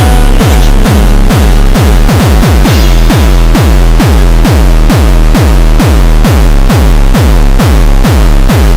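Loud electronic dance music with a fast, steady kick-drum beat over heavy bass.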